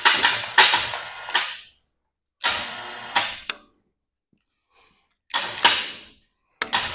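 Metal clanks and rattles from the hoisting gear as a hanging steel truck frame rail is shifted and levelled, coming in short bursts of sharp knocks about a second long with brief silences between.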